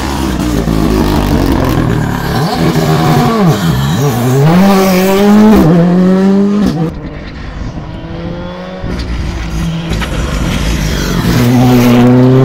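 Rally car engines at full throttle as the cars pass on the stage, heard in several short cuts. The engine pitch drops and climbs again with each lift and gear change, and rises steeply near the end as a car comes close.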